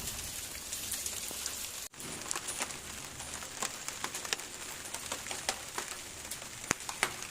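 Steady rain falling, with many separate drops ticking sharply on nearby surfaces. The sound cuts out for an instant about two seconds in.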